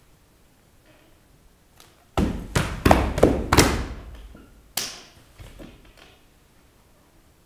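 Body percussion by dancers: about two seconds in, a quick cluster of sharp slaps and thuds, five or six in under two seconds. It is followed by one more sharp hit and a few softer taps.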